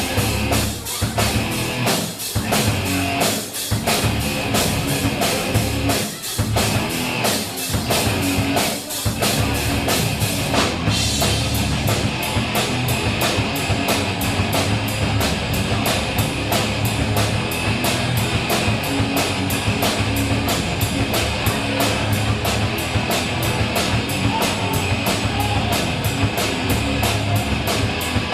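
Rock music with drum kit and guitar: stop-start hits over the first several seconds, then a steady driving beat from about eleven seconds in.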